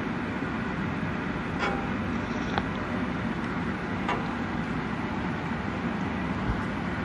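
Steady low rushing kitchen background noise, with a few faint light taps as a silicone spatula spoons coconut-milk sauce over salmon simmering in a nonstick pan.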